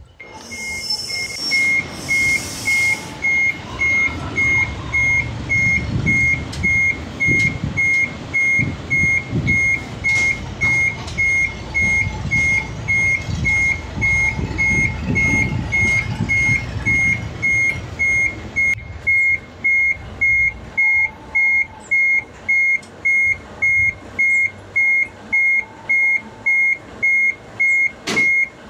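A truck's warning beeper, of the reversing-alarm kind, sounding at about three even beeps every two seconds over the low rumble of the tractor-trailer's engine. Two short hisses come near the start.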